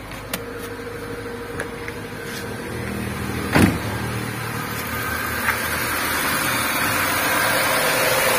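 Freshly overhauled Nissan Grand Livina four-cylinder petrol engine idling steadily and smoothly on its first run after rebuild, growing louder as it is heard first from the cabin and then close up at the open engine bay. A car door shuts with a single thud about three and a half seconds in.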